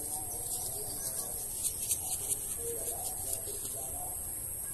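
Steady high-pitched insect drone, with faint low bird calls, likely doves cooing, now and then. A short run of soft scratchy rustles near the middle as a hand works the loose soil of the seedbed.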